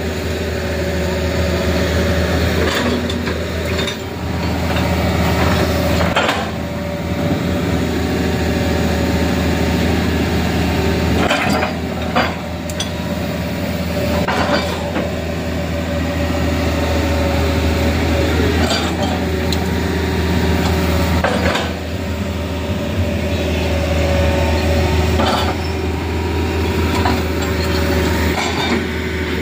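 Hydraulic excavator's diesel engine running steadily, with scattered sharp clanks and knocks as its bucket works through rock and gravel.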